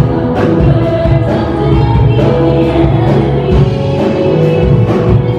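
Music with singing voices and a steady beat.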